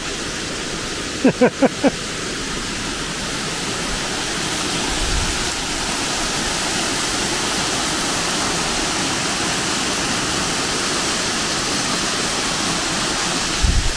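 Steady rushing of a waterfall on Bentley Brook, water pouring over rock into a pool below; it grows a little louder a few seconds in.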